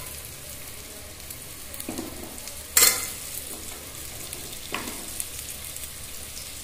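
Carrots and onions frying in butter in a small pressure cooker, a steady sizzle, broken by a sharp knock about three seconds in and two fainter ones before and after.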